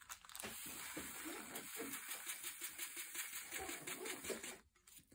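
Tiny plastic diamond painting drills pouring from a plastic sorting tray into a plastic bag: a continuous fine rattle of many small clicks that stops about four and a half seconds in.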